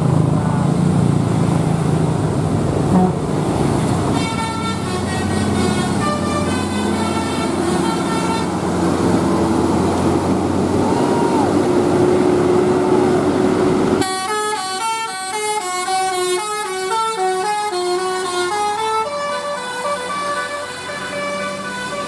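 Multi-tone 'telolet' musical horn on a tour bus, a Basuri-type horn, playing a melody of stepping notes over bus engine and traffic noise. About fourteen seconds in, the engine noise drops away suddenly and the horn melody carries on cleaner and louder.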